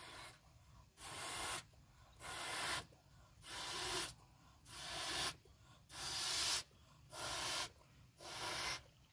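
A balloon being blown up by mouth: a steady series of hissing puffs of breath pushed into it, about eight, a little under one a second, each one swelling in loudness as it goes.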